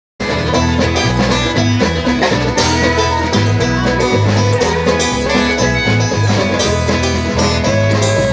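Live bluegrass band playing an instrumental intro: rolling banjo picking, strummed acoustic guitar and fiddle over a steady pulse of low notes, cutting in abruptly right at the start.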